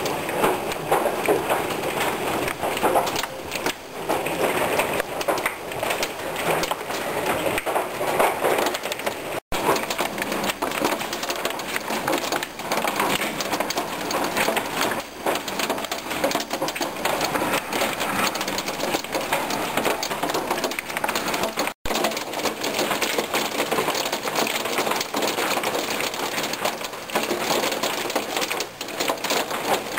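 Hail mixed with heavy rain pelting a wooden deck, a loud, dense, steady clatter of small hard impacts. It cuts out for a split second twice.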